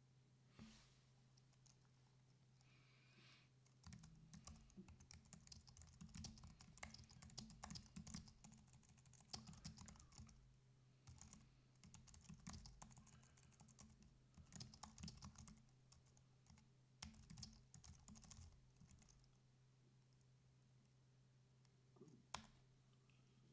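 Faint typing on a computer keyboard: quick, irregular key clicks for about fifteen seconds, then a pause and one sharper key stroke near the end. A steady low electrical hum runs underneath.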